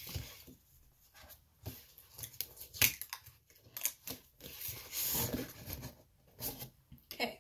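Cardboard packaging being opened by hand: irregular scraping, tearing and rustling of the box and its sleeve, with one sharper crack about three seconds in.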